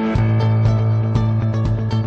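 Background music with guitar and a steady beat; a deep bass note and the beat come in just after the start.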